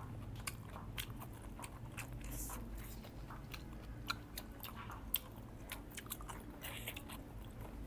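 Close-up chewing of food, with many small wet clicks and crunches from the mouth scattered throughout.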